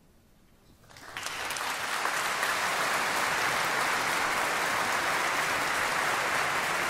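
Near silence, then audience applause starts about a second in, swells over the next second and holds steady.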